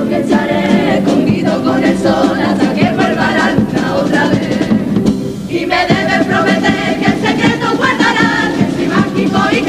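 A Cádiz carnival comparsa chorus of mixed male and female voices singing in harmony, accompanied by Spanish guitars and a bass drum. The singing drops briefly about halfway through, then comes back in full.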